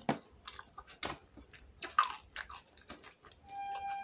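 Close-up chewing and mouth smacks of someone eating fish with rice, a run of irregular wet clicks. About three and a half seconds in, a steady tone with overtones starts and holds.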